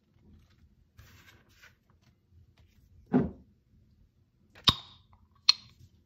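Handling a jar of black olives: a dull knock about three seconds in, then two sharp clicks near the end as the jar's lid is worked open.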